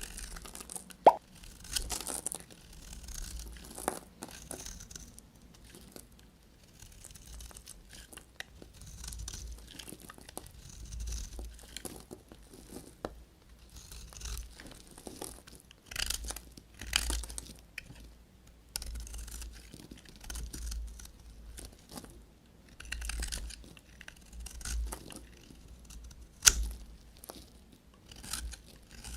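A knife cutting through bars of soap: irregular crunchy, scraping cuts, with two sharp clicks, one about a second in and one near the end.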